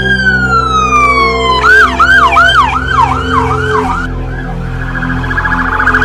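Electronic siren on a fire apparatus: a wail falling in pitch, switching after a second and a half to a fast yelp of about four sweeps a second, which fades out to a fainter rapid warble. A steady low drone runs underneath.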